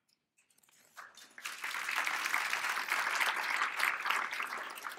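Audience applauding: the clapping starts about a second in, swells quickly, holds, and fades away near the end.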